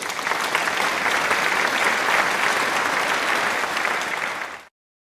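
Applause: many hands clapping in a dense, even patter, cutting off suddenly near the end.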